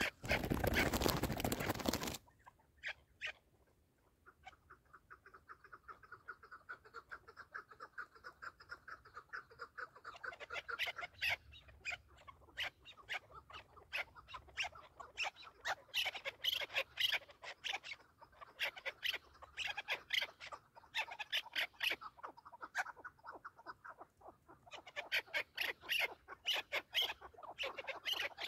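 A loud rush of noise cuts off about two seconds in. Then chukar partridges call in long runs of rapid, repeated clucking notes.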